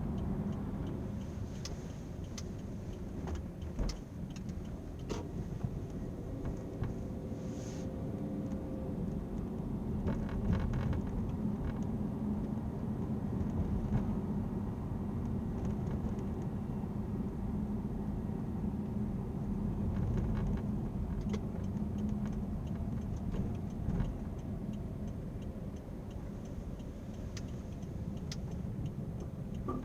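Car cabin road noise while driving: a steady low rumble with scattered sharp ticks and rattles, the abnormal noise coming from the rear parcel shelf.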